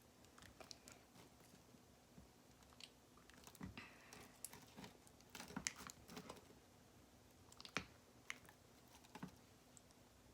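Faint, irregular clicks and taps of slime-making: more contact solution being added to glue slime and stirred in a container. The sharpest taps come a little past the middle and again about eight seconds in.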